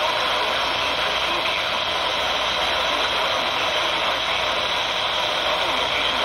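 Steady hiss of radio static from a receiver tuned to a weak or empty frequency, with no clear voice coming through.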